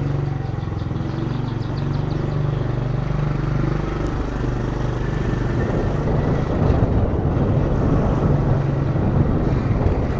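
A small engine running steadily, its sound turning rougher about six seconds in.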